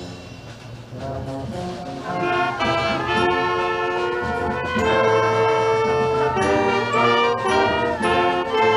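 Brass band playing a slow tune in long held notes, soft at first and swelling louder about two seconds in.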